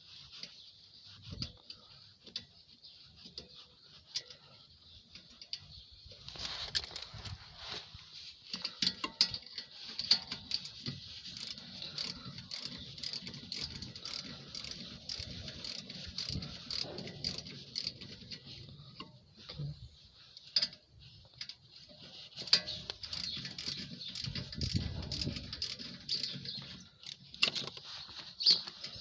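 Scattered metal clicks, knocks and scraping as the rear brake caliper's guide bolts and parts are worked loose and handled by hand, over a steady high-pitched hiss.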